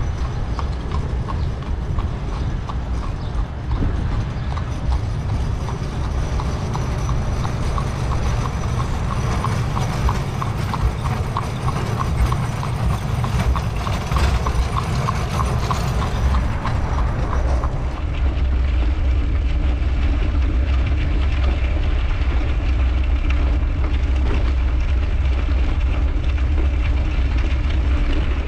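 A horse pulling a wooden-wheeled wagon, its hooves clip-clopping in a steady rhythm on the asphalt street, over a low wind rumble on the microphone. After about 18 seconds the hooves are gone, leaving a steady low wind and road rumble from the moving bicycle.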